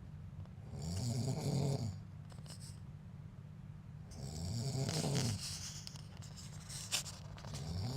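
A man snoring in his sleep: a low, rattling snore about every three and a half seconds, two full snores with a third starting near the end. A short click sounds just before the last one.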